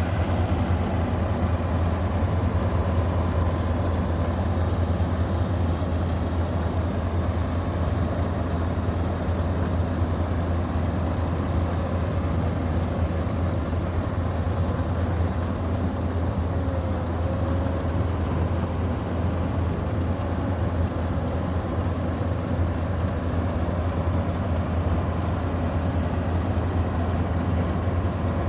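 Combine harvester running steadily while cutting wheat: a constant low engine drone with a steady high hiss over it.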